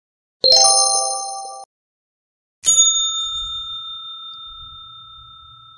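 Two chime sound effects from an animated subscribe button: a bright ding of several tones about half a second in that stops abruptly about a second later, then a bell-like ding near three seconds in that rings on and slowly fades.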